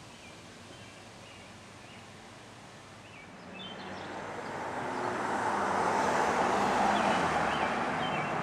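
Small birds chirping over outdoor ambience, while a passing road vehicle grows steadily louder from about halfway through and peaks near the end.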